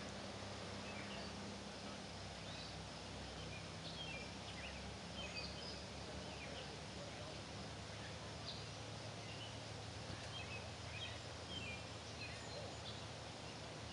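Outdoor ambience of birds at a lake: many short scattered chirps and calls from several birds over a steady background hiss.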